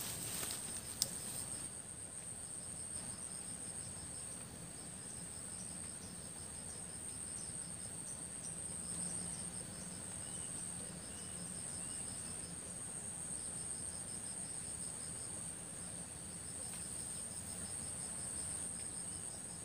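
Insects trilling in dense vegetation: a steady high-pitched drone with a faster pulsing chirp train just below it that comes and goes. A few faint short chirps sound a little past the middle.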